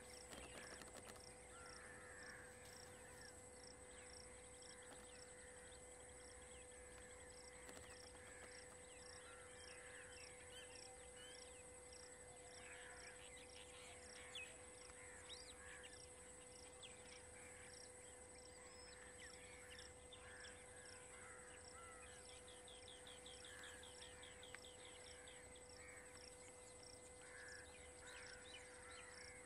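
Faint forest ambience: scattered bird calls over an insect chirping steadily about twice a second, with a brief rapid trill about two-thirds of the way through.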